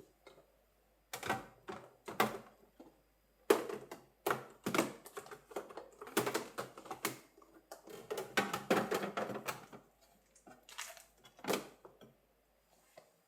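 Irregular clatter of hard objects being handled and set down: quick clicks and knocks in bursts, with the busiest stretch in the middle.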